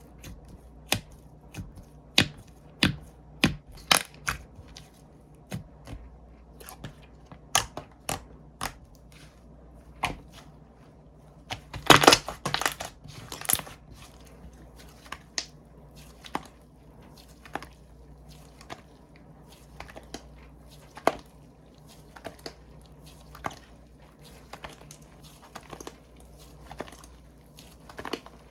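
Slime being worked by hand, giving irregular sharp clicks and pops, with a quick run of louder pops about twelve seconds in.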